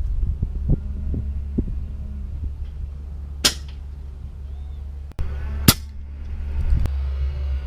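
Two sharp cracks about two seconds apart from a suppressed .22 Umarex Gauntlet 2 PCP air rifle, with a few lighter clicks before them, over a steady low hum.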